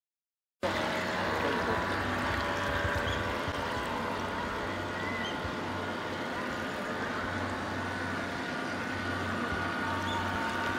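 Electric radio-controlled model fishing boat running across the water: the steady sound of its motor and bow wash, with faint steady tones above it. The sound cuts in suddenly about half a second in.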